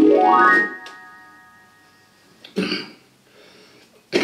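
Portable electronic keyboard: a fast upward run of notes swept up the keys, each note left ringing and fading away over about two seconds. A short noisy burst follows about two and a half seconds in.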